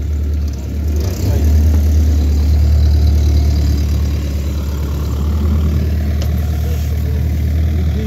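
Engine of a small tracked excavator used as a backhoe, running steadily at idle with a deep hum.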